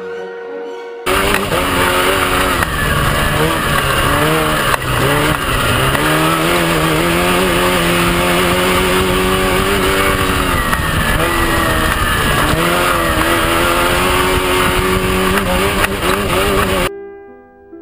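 Off-road race truck engine running hard at high revs, its pitch repeatedly rising and dipping as the throttle opens and closes, over a dense rushing noise. It cuts in suddenly about a second in and stops abruptly near the end.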